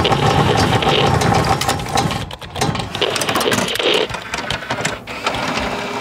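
Sound effects of an animated logo intro: a dense run of fast mechanical clicks and whirring over a low rumble.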